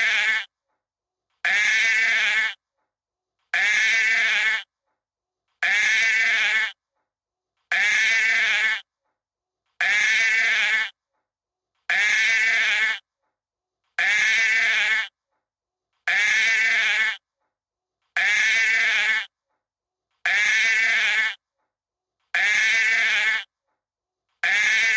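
Sheep bleating: one bleat about a second long, repeated identically about every two seconds, about a dozen times, with dead silence between.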